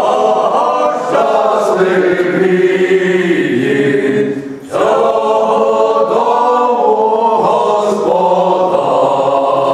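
A small male vocal ensemble singing a cappella in harmony, holding long notes. The singing breaks off briefly about halfway through and then the next phrase begins.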